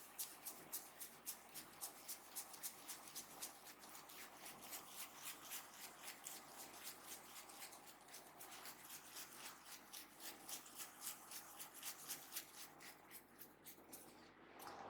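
Faint massage sounds: hands rubbing the scalp and hair in quick, even, scratchy strokes, about three to four a second, which thin out near the end.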